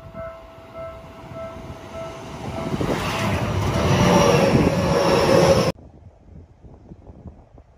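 A railway level-crossing bell ringing in quick repeated tones, about twice a second, that stops about a second in. Then a train passes, growing louder over a few seconds until the sound cuts off suddenly.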